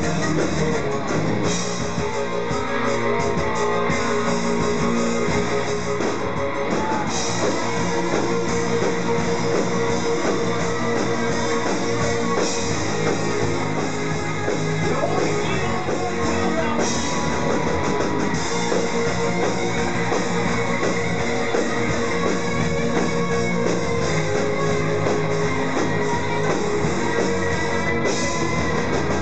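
Live rock band playing: electric guitars and drum kit with a male singer, loud and continuous.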